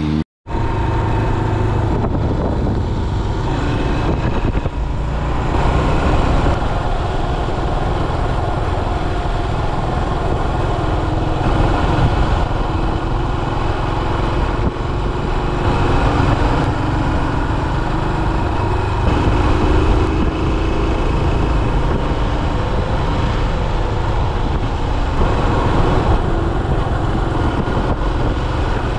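Yamaha SR400's single-cylinder four-stroke engine running while riding, heard from the handlebars with wind rushing past; the engine note rises and falls a little with the throttle. A brief moment of silence just after the start.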